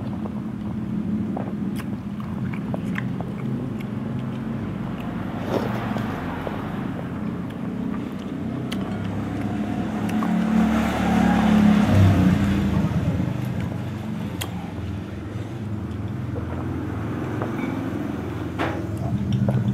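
Seblak noodles being slurped and eaten, with spoons now and then clicking against the plates. A steady low hum lies under it all and is the loudest sound.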